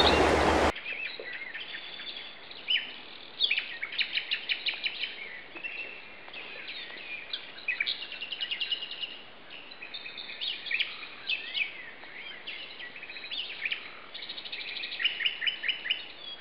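A rushing of flowing stream water cuts off abruptly under a second in. It gives way to songbirds chirping and singing, with many quick, rapidly repeated trills and chirps.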